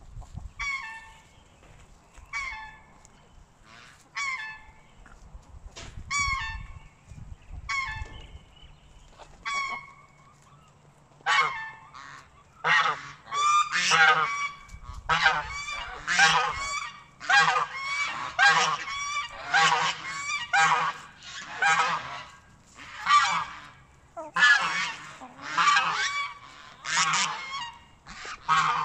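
Domestic geese honking repeatedly. The calls come about once a second at first, then grow louder and more frequent, overlapping, from about eleven seconds in as several geese call together.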